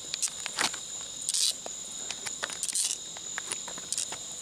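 Night insect chorus, a steady high-pitched trill from many crickets, broken by scattered sharp clicks and short crackles, the loudest about a second and a half in and again near three seconds.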